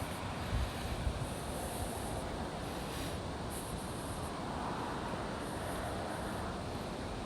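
Steady wind noise on the microphone, with two brief low thumps about half a second and a second in.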